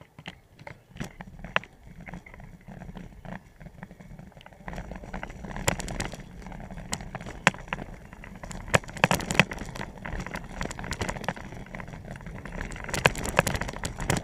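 Bicycle rolling downhill over a rough road, rattling with irregular clicks and knocks. A low rumble of wind and tyres grows louder about five seconds in.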